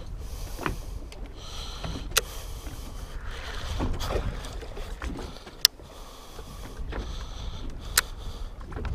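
Small waves lapping against a fishing boat's hull, with wind rumbling on the microphone. Three sharp clicks, about two, five and a half, and eight seconds in.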